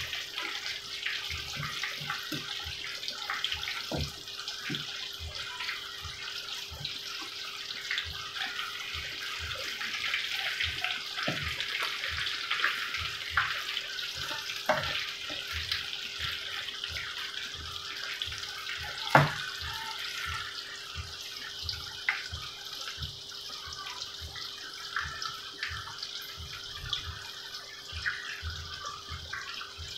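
Batter-coated eggplant strips deep-frying in hot oil: a steady sizzle full of small crackles and pops. A single sharper knock comes about two-thirds of the way through.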